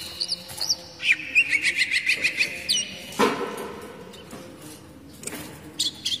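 Oriental magpie-robin singing: sharp whistled notes that slide up and down, and a quick run of repeated chirps from about one to three seconds in. A brief rustle sounds about three seconds in.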